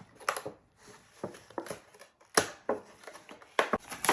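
A toy box being opened by hand: a string of sharp snaps and crackles of the packaging, about eight of them spread unevenly.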